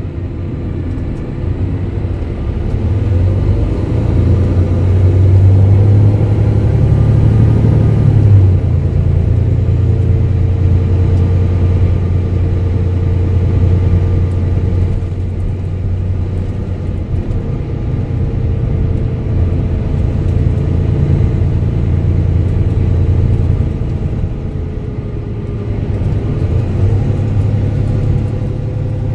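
Mercedes-Benz OM470 inline-six diesel engine of a Setra MultiClass 500 LE bus running under way, its low drone swelling and easing with load. Its pitch drops suddenly about eight and a half seconds in.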